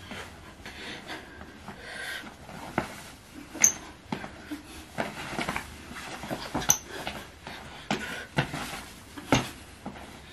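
Quick footwork in sneakers: irregular thuds and scuffs of feet on the floor, two brief high shoe squeaks, and heavy breathing between them.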